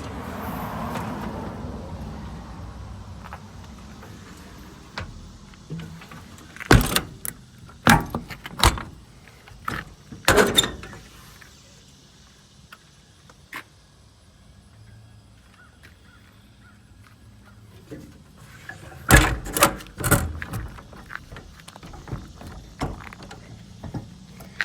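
Metal service-body compartment door and its latch being worked, giving a series of sharp clanks and clicks in two clusters: several around the middle and two more near the end. The latch is stiff and sticky, and may need greasing.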